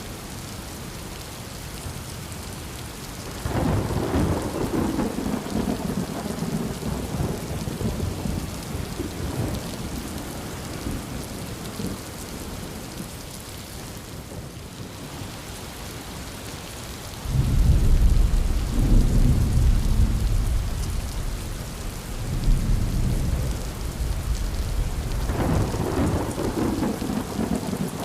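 Steady heavy rain with rolling thunder. A sudden thunder crack and rumble comes a few seconds in and fades out. About halfway through, a louder, deeper rumble rolls on for several seconds, and a further burst comes near the end.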